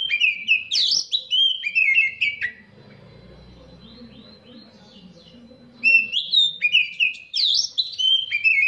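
Caged oriental magpie-robin singing: two loud runs of rapid, sliding whistled notes, one at the start and one from about six seconds in, with softer notes between.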